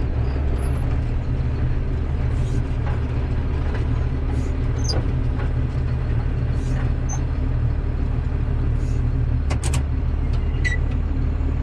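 A vehicle engine running steadily, a constant low rumble, with a couple of faint clicks about ten seconds in.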